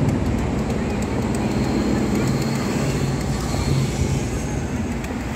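Steady low engine rumble from motor vehicles or an aircraft, holding an even level throughout.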